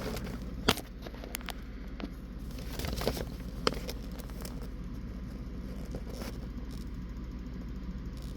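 Paper instruction manual being handled, with a few sharp rustles and clicks as pages are turned, over a steady low hum.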